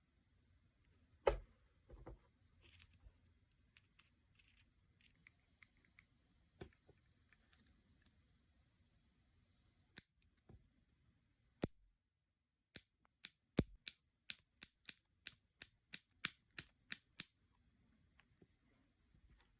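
Crisp snips of a small nail-care cutting tool, such as clippers or cuticle nippers. A few scattered snips come first, then a quick run of about a dozen at roughly three a second near the end.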